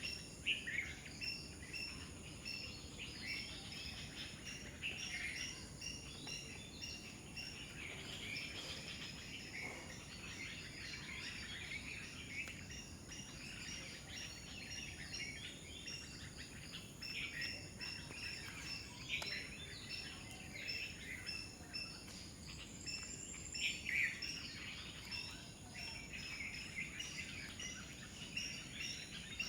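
Many birds chirping and calling together in a dense, overlapping chorus, over a steady high-pitched insect drone.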